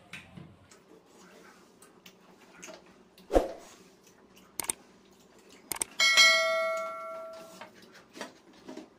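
A sharp knock, then a few short clicks, then a bell ding about six seconds in that rings out and fades over about a second and a half: the click-and-bell sound effect of a subscribe-button animation.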